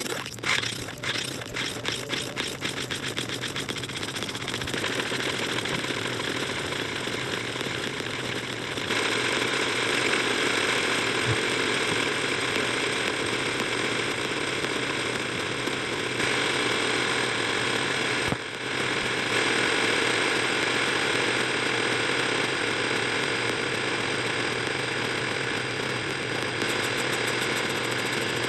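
Heavily distorted audio from a clip re-exported and layered over itself many times: a dense, harsh, steady noise. It rattles quickly for the first few seconds and grows louder about nine seconds in.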